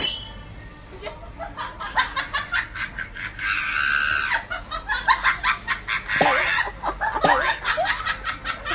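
People laughing in quick breathy pulses, several a second, starting about a second in and running on with a few short vocal cries near the end.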